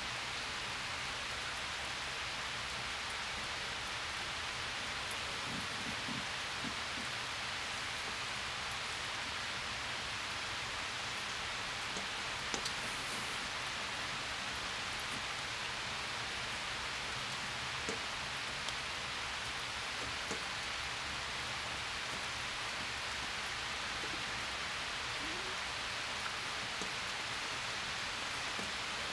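Steady light rain falling, an even hiss.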